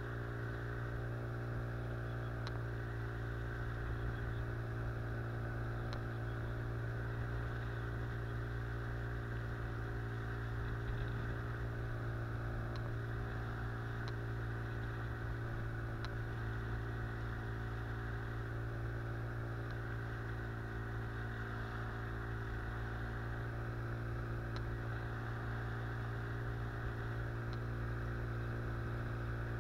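Outboard motor of a small river boat running at a steady speed, its pitch holding even throughout.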